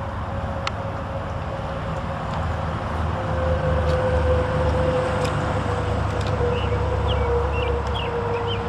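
Steady low mechanical rumble with a steady whine that sinks slightly in pitch, growing a little louder about three seconds in; birds chirp now and then.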